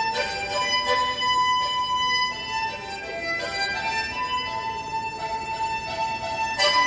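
Harmonica playing a slow melody in long held notes that change pitch about every second or two.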